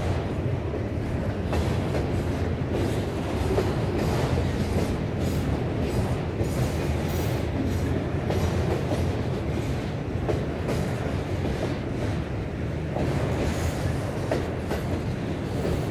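Freight train of autorack cars rolling past: a steady rumble of steel wheels on rail, with scattered clicks as the wheels cross the rail joints.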